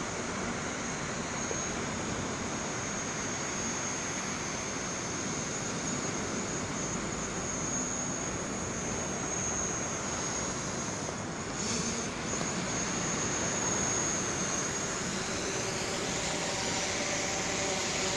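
DJI Mavic Pro quadcopter's propellers whirring steadily, with a high whine over a wash of wind and surf noise.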